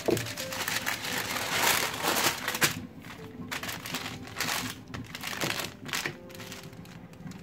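Parchment paper crinkling and rustling as a wooden rolling pin rolls cookie dough between two sheets and a hand smooths the paper. The crinkling is loudest in the first three seconds, then softer rustling strokes follow.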